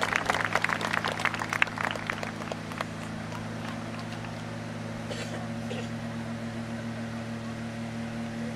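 Audience applause dying away over the first two or three seconds, leaving a steady low hum with a few steady low tones.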